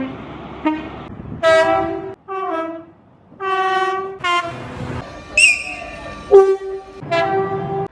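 Train horn blasts from different trains, edited back to back: about seven short blasts of differing pitch, each cut off abruptly. One blast just past the middle is noticeably higher-pitched, and train running noise sits under the first second.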